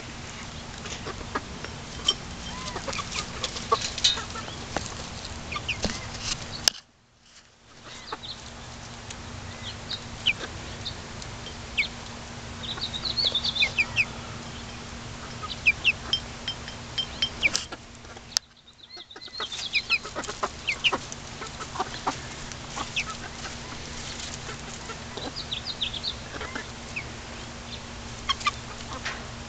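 Small flock of young backyard hens clucking and giving many short high-pitched calls as they chase and snap up crane flies. The sound drops out briefly twice.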